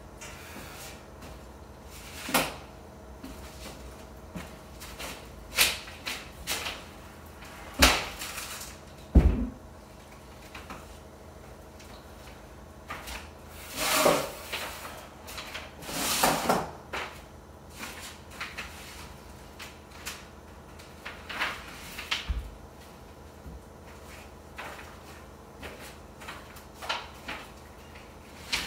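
Scattered knocks, clunks and scrapes of a heavy cast iron radiator being rocked off wooden boards and walked into place on the floor. One heavy low thump comes about nine seconds in, and longer scraping follows about halfway through.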